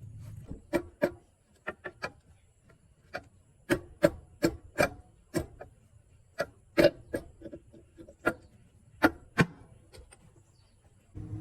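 A run of about twenty sharp, irregular clicks and knocks, like metal parts or tools being handled and tapped. Just before the end a small motorcycle engine starts running.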